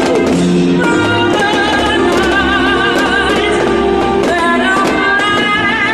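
Loud music with a singing voice holding long, wavering notes over instrumental accompaniment.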